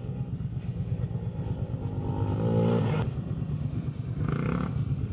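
Sport ATV engine revving hard under load as the quad climbs through sand. Its pitch rises from about two seconds in, drops suddenly when the throttle comes off at about three seconds, and picks up again near the end.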